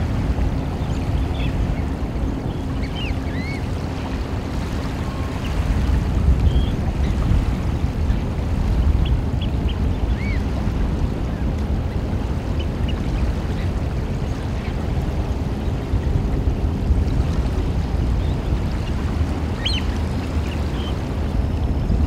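Steady low rush of wind and lapping water, with scattered short, high bird calls and a small cluster of them near the end.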